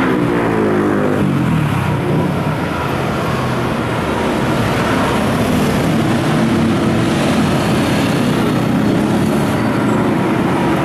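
Busy city street traffic, motorbikes and cars running past close by, loud and steady. In the first second and a half one engine's note drops in pitch.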